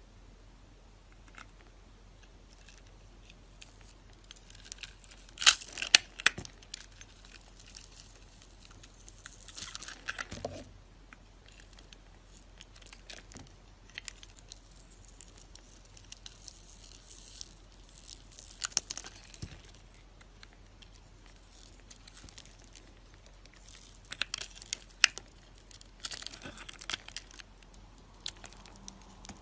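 Bar soap being cut with a knife: scattered crisp crackling crunches in short clusters, loudest about five to six seconds in and again around twenty-five seconds, with quiet gaps between.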